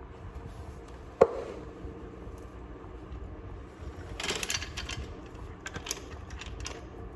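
A motorcycle drive chain clinking and rattling as it is handled and fed onto the sprocket. A single sharp clink with a short ring comes about a second in, the loudest sound, followed by bursts of light rattling of the links about four and six seconds in.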